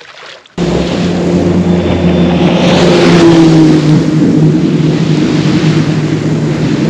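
Bass boat outboard motor running steadily under way, its steady drone mixed with rushing water and wind noise. It cuts in abruptly about half a second in.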